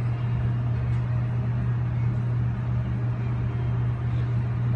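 Steady low machine hum with a light hiss over it, unchanging throughout.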